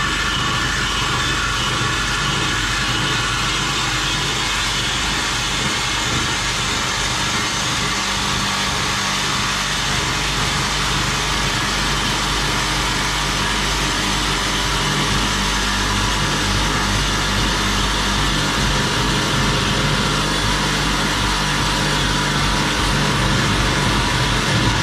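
Sawzall reciprocating saw cutting through a metal exhaust pipe, its motor running continuously at a steady pitch.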